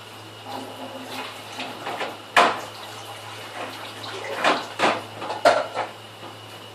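Dishes being washed by hand in a kitchen sink: water splashing and dishes clattering, with a few sharp knocks about two and a half seconds in and a cluster near the end.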